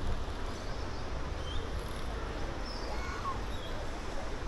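Steady low rumble of wind on the microphone, with a few faint, short, high bird chirps scattered through it.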